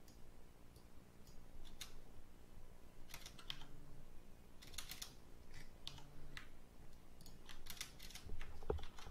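Computer keyboard keystrokes: irregular clicks coming in short clusters, over a faint steady hum.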